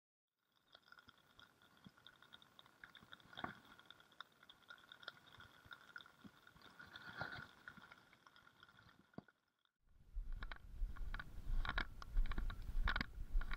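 Light rain on a lake: a faint patter of soft ticks under a faint steady whine. After a cut about ten seconds in, a much louder low rumble of wind buffeting the microphone, with scattered sharp knocks.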